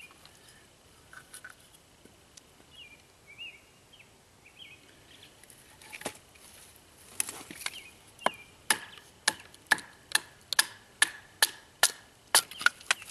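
A bushcraft knife chopping into a piece of wood to cut away a knot, as a series of sharp knocks. The knocks start about six seconds in and settle into a steady run of about two a second. A few soft bird chirps come before them.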